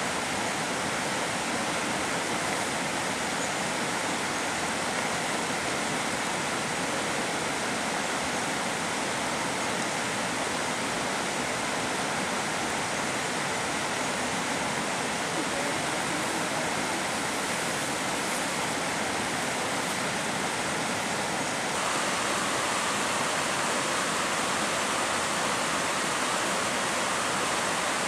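Steady rushing of flowing water, a river or stream running close by, unbroken, with a slight change in tone about two-thirds of the way through.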